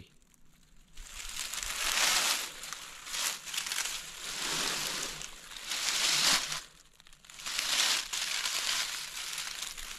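Dry fallen leaves crunching and rustling in uneven swells as a dead whitetail buck is shifted by its antlers and dragged around on the leaf-covered ground. There is a short lull about seven seconds in.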